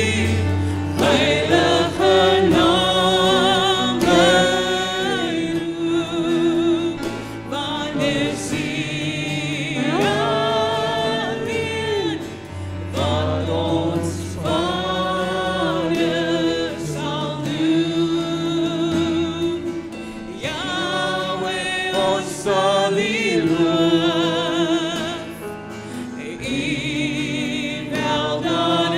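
Live worship band and congregation singing an Afrikaans praise song, voices holding long, wavering notes over guitar and keyboard accompaniment.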